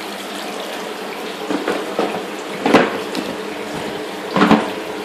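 Nutrient solution from the return pipes of a pumped recirculating deep-water-culture tub pouring and splashing steadily into the reservoir water, like a running tap. Two louder short sounds stand out, one about halfway through and one near the end.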